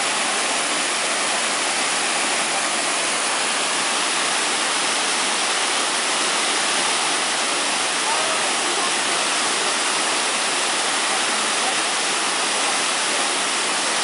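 Waterfall: white water rushing down a sloping rock face, a loud, steady, unbroken rush of noise.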